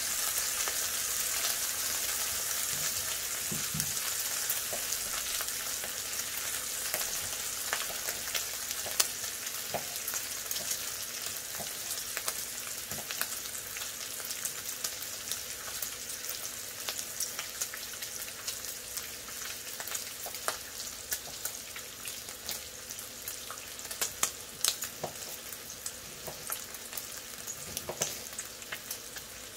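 Bacon frying on a Blackstone steel flat-top griddle: a steady high sizzle full of sharp crackling pops that eases off slowly.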